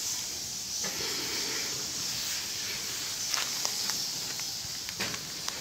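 Bat colony in a cave, a steady high chittering hiss with a few short sharp squeaks or clicks standing out in the second half.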